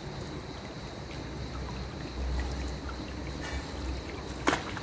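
Pool water trickling and sloshing as a person steps down a steel ladder into the pool, with one sharp knock near the end.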